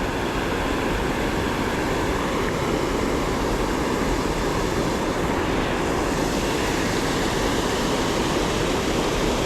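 Steady rushing of a creek waterfall pouring over rocks, an even, unbroken noise.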